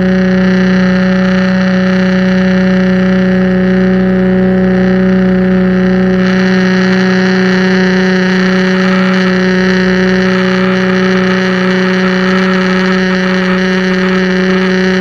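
Pressure washer running at a steady pitch, with the hiss of its spray over the machine's tone; the hiss grows stronger about six seconds in.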